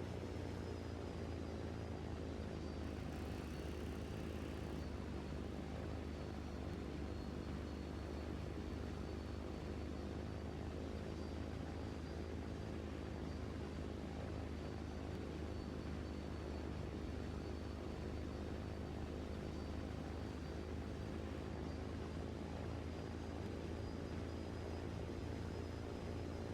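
An engine running steadily at a constant speed, with a faint high whine above it.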